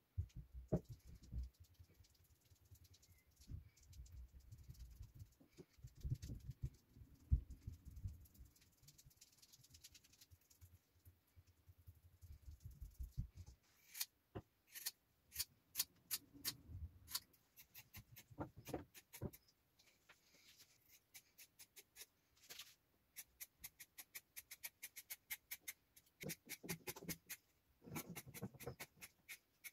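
Faint dabbing and handling of epoxy-wet carbon fibre cloth on a hull mould with a paintbrush, soft low thuds. From about halfway on, scissors snip the carbon fabric in runs of sharp clicks, with a cluster near the end.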